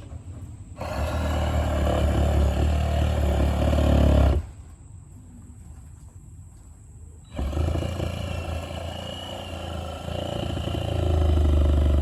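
Electric power saw cutting through wall boards, running in two spells: on about a second in, stopping abruptly around four seconds, then starting again a few seconds later.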